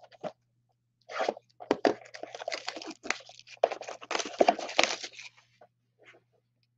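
A 2020 Panini Donruss Optic football card blaster box being torn open by hand: a run of tearing, crinkling and scraping of its plastic wrap and cardboard. It starts about a second in and dies away after about five seconds.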